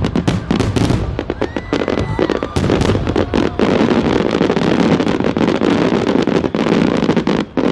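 Dense barrage of aerial fireworks: many shell bursts banging in quick, overlapping succession, with crackling between them.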